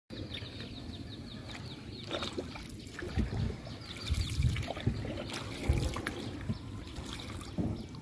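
Water trickling and lapping around a wooden boat moving on the river, with irregular low thumps. A quick series of short, high descending chirps, about four a second, comes over it at the start and again midway.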